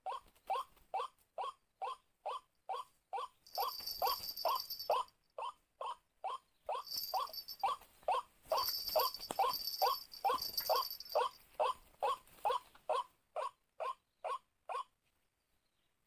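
White-breasted waterhen calls: a steady run of short, rising notes, about three a second, that stops near the end. A high-pitched buzz comes and goes behind them.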